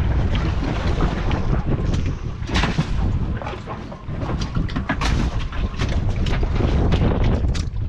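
Wind rumbling on the microphone, with a run of sharp slaps and knocks as freshly caught mackerel are grabbed and dropped onto a fiberglass boat deck.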